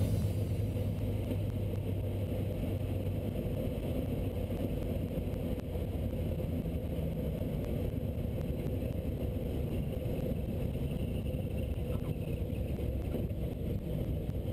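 Pitts S-2B biplane's six-cylinder Lycoming engine and propeller heard from the open cockpit, a steady drone with wind rush, as the plane comes down over the runway to land.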